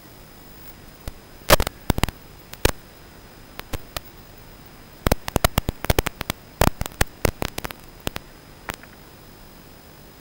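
Hiss and static on the audio of an analog FPV video feed, with a faint steady high whine underneath. Irregular loud crackles and pops break in, in clusters, from about a second and a half in until about eight seconds in.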